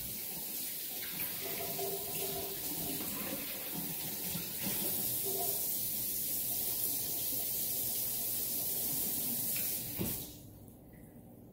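Kitchen tap running steadily into a sink, then turned off near the end.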